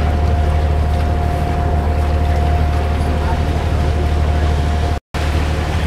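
Steady low drone of a ship under way, with a faint steady high whine over it; the sound cuts out for a moment near the end.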